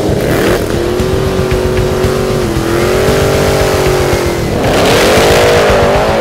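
Holden VF Commodore Clubsport's V8 revving hard during a burnout, the engine note rising and falling as the rear tyres spin. Near the end the revs climb and the tyre noise grows.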